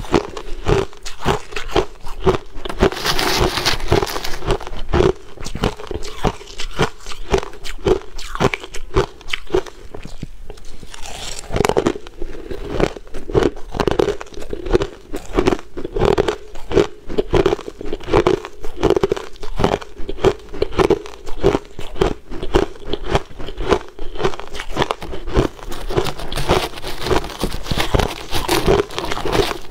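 Crushed ice being bitten and chewed: a dense, continuous stream of crisp crunches with no pauses.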